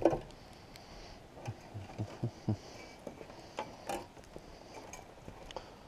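Pole-light fixture parts being handled: scattered light knocks and clicks. The loudest comes right at the start, and more cluster about two seconds in and again around four seconds.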